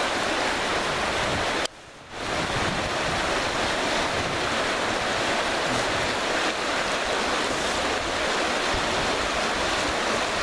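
Rushing whitewater of a fast river rapid: a steady, even rush of water noise, with a brief drop-out a little under two seconds in.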